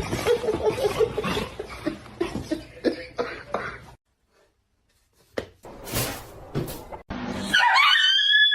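A run of rough, noisy sounds for about four seconds, cut off abruptly by a moment of silence and a few short noises; about a second before the end a dog starts howling, a wavering high-pitched cry.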